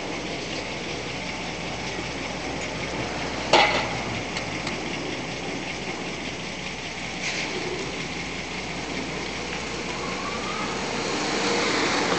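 Steady vehicle engine and road noise as a pickup moves along a street. A single sharp knock comes about three and a half seconds in, and the noise swells near the end.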